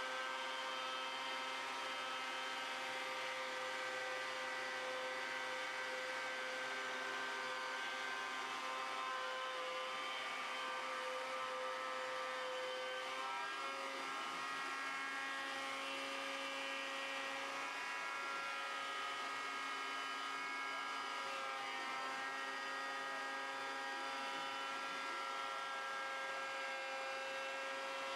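Wood router on a homemade CNC machine running steadily as it cuts a wooden guitar body, together with a shop vacuum clearing the chips from the cut. A steady whine of several held tones, shifting slightly in pitch about halfway through.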